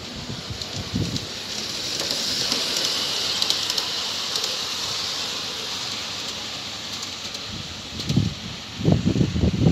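Miniature model passenger train running past on its track: a hissing rush of wheels and motor swells over the first couple of seconds, peaks, then fades away as the train disappears into the tunnel. Low thumps of wind buffeting the microphone near the end.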